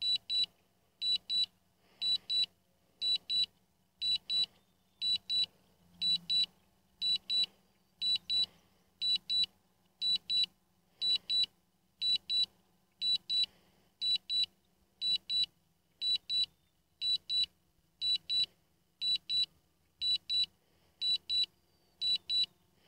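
DJI Phantom 3 return-to-home alert: a high double beep repeating about once a second, signalling that the drone is flying home on its own.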